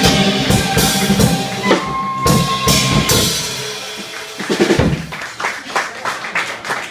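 Live jazz quartet playing, with piano and bass under a drum kit. After about four seconds the band thins out, leaving scattered sharp drum hits.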